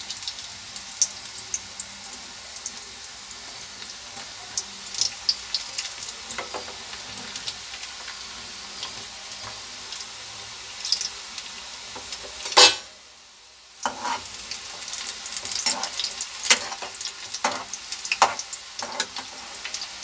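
Besan-coated peanuts deep-frying in hot oil in a kadai: a steady sizzle with frequent crackles and pops. A sudden loud burst of sizzling comes about twelve and a half seconds in, followed by a break of about a second before the frying sound returns.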